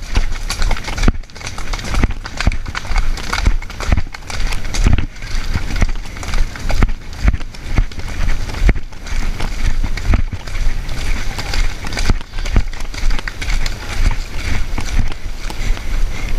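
Hoofbeats of a palomino mare moving fast on a dirt trail, a continuous run of thuds, heard through a helmet camera with wind rumbling on the microphone.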